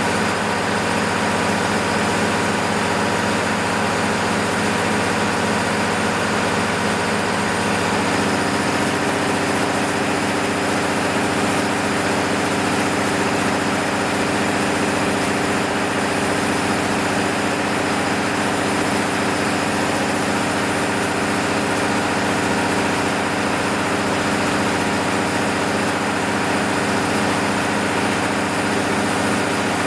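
MEP-006A 60 kW military generator's six-cylinder diesel engine running steadily at constant speed during a load test after an engine overhaul. Its tone shifts about eight seconds in and then holds steady again.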